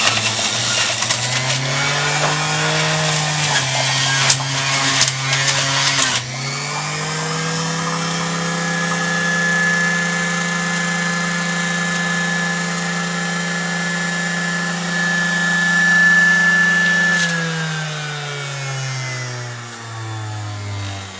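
Philips Avance centrifugal juicer motor running, crunching and grinding the fruit for the first six seconds or so as it is pushed down the chute, its pitch dipping under the load. It then spins freely with a steady hum and high whine, and from about 17 s winds down in falling pitch after being switched off.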